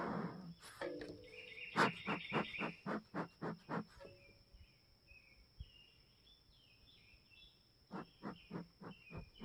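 Bee smoker bellows pumped fast, about four puffs a second, in two runs with a few seconds' pause between them. This fans air into the smouldering leaves and pine needles to get the smoker going again. Birds chirp during the pause.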